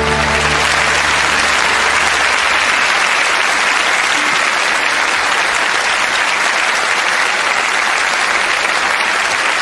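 A large theatre audience applauding steadily, many hands clapping at once, as the last notes of the music die away in the first moments.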